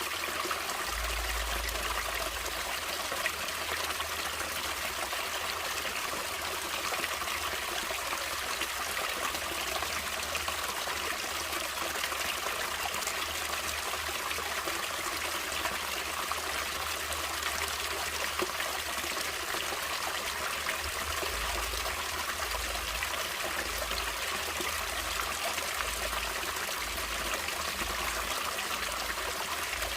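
Natural stream water running and trickling steadily, a constant even rush with no breaks.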